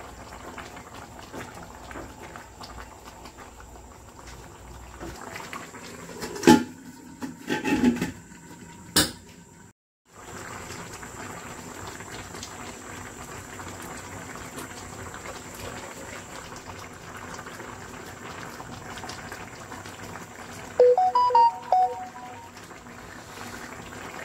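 Chicken and vegetable stew simmering in a pan, a steady bubbling hiss. A few sharp knocks come about a third of the way in, and a short run of pitched tones near the end.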